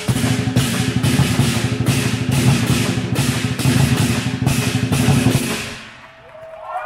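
Lion dance percussion: a drum rolling fast under cymbal crashes about twice a second, stopping about five and a half seconds in as the cymbals ring out.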